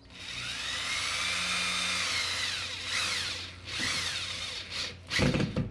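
Power drill driving a drywall screw through the drywall into a wooden backer plate, its motor whine speeding up and slowing as the trigger is worked, then a second short burst as the screw sets to countersink. A knock comes near the end.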